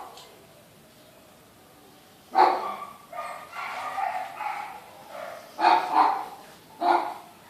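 A sleeping dog snoring: after a pause of about two seconds, a run of loud, harsh snores, one drawn out over about two seconds and then several short ones close together.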